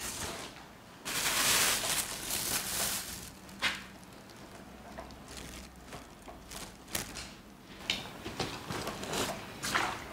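Liquid dye poured from a plastic bowl and splashing onto tied fabric for about two seconds, starting about a second in, followed by scattered small knocks and clicks of handling.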